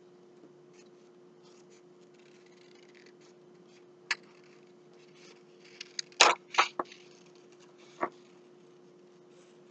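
Scissors cutting paper: faint snipping and rustling, with a sharper snip about four seconds in and a quick cluster of louder snips and paper crackles between six and eight seconds in, over a steady low hum.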